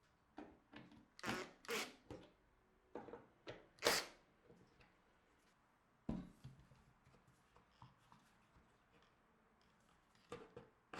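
Workshop handling noises: a string of short scrapes, clicks and knocks, the loudest about four seconds in and a low thud about six seconds in, with no power tool running.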